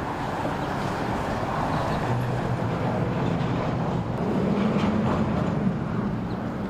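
An engine running with a steady low hum, its pitch stepping up about four seconds in.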